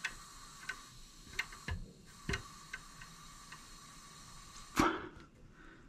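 Air blown through an AR-15 barrel hissing faintly out through the gas block, with a steady thin tone and a few light clicks; a brief louder burst comes near the end. The airflow is listened to for setting gas block alignment: it runs loudest when the block's port lines up with the barrel's gas hole.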